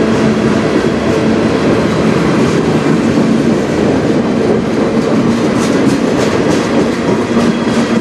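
Freight train cars (autoracks, a centerbeam flatcar and tank cars) rolling past close by: a loud, steady rumble of steel wheels on rail with a faint hum running through it and a few light ticks a little past the middle.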